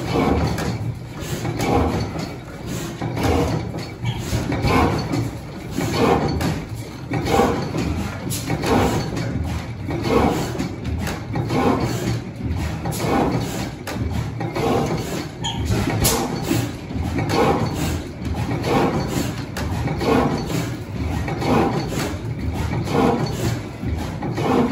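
Large old horizontal single-cylinder stationary gas engine with twin flywheels, running slowly with a steady, regular beat a little faster than one a second.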